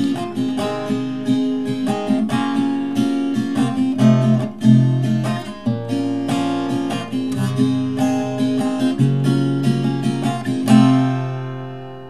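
Acoustic guitar with a capo, playing an instrumental run of picked and strummed chords to close the song. A final chord about eleven seconds in is left to ring and fade away.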